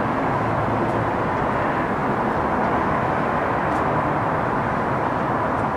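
A GO Transit commuter train's bilevel coaches rolling past on the rails: a steady rumble and hiss of wheels on track.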